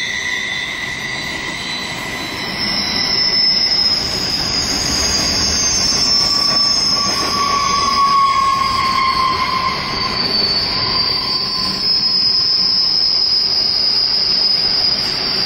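Container wagons of a freight train rolling past, their wheels squealing in several high, wavering tones that shift in pitch over the steady rumble of the wheels on the rails.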